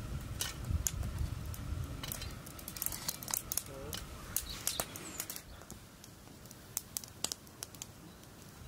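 Dry crackling and rustling of dried leaves and herbs being handled, with many small sharp crackles, dense for the first five seconds and sparser after. A low muffled rumble underlies the first two seconds.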